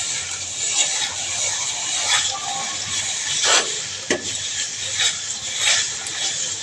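A steady hiss with a handful of short scrapes or knocks, about five over a few seconds.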